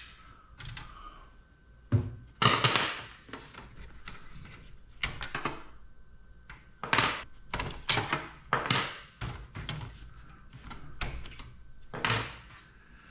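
Desktop computer being dismantled by hand: an irregular series of knocks, clicks and rattles from its metal case and parts being handled and pulled.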